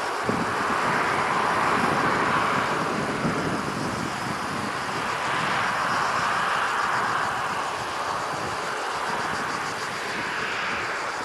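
Airbus A321-211 jet engines at takeoff thrust: a steady, loud rush of jet noise that slowly swells and eases, tapering slightly near the end.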